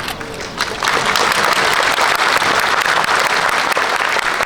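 Crowd applauding: a few scattered claps at first, then the applause breaks out in full about a second in and holds steady.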